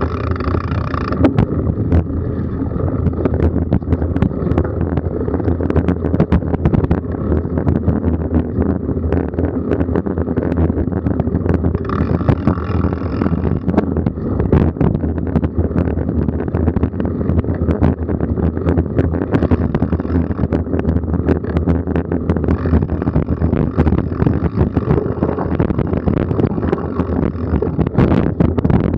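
Wind rushing over the microphone of a camera riding on a moving mountain bike, with constant knocks and rattles as the bike runs over bumps in the dirt trail.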